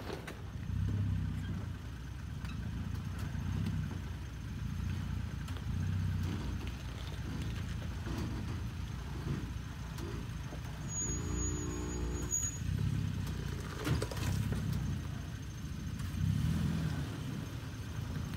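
Toyota Tacoma pickup's engine running at low revs while crawling over rocks, the throttle swelling and easing every couple of seconds. A sharp knock, like a tyre or the underbody striking rock, comes about fourteen seconds in.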